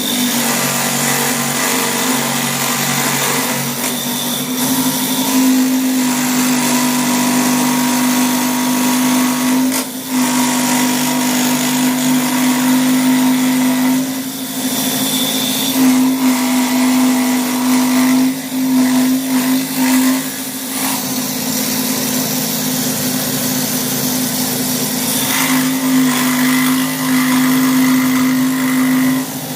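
Milwaukee M12 cordless die grinder running at high speed, its bit carving black walnut wood in a steady high whine. The whine dips briefly a few times as the tool eases off the wood.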